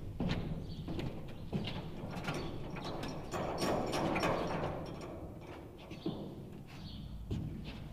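Footsteps and irregular knocks on the steel floor of a raised dump truck bed, with clanks of tools and gear being handled.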